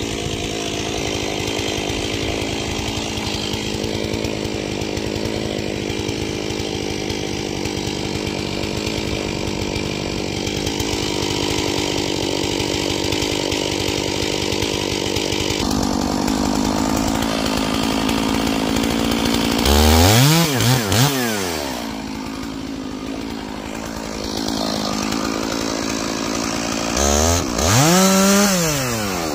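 Stihl MS461 two-stroke chainsaw held at high, steady revs for about twenty seconds while cutting green fir, then revved up and back down a few quick times, dropping lower for a couple of seconds and blipping up and down again near the end.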